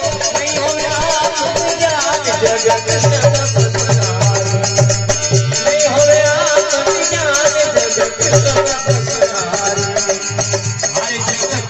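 Folk devotional bhajan music: a wavering melodic line over a steady low drum beat and jingling percussion.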